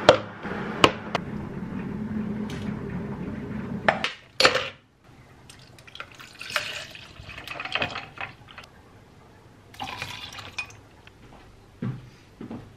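Iced matcha being made at a kitchen counter: a steady rushing sound for the first four seconds with a few sharp clicks of a straw against a plastic cup, then two loud knocks. Milk is then poured from a carton into the plastic cup about six to eight seconds in.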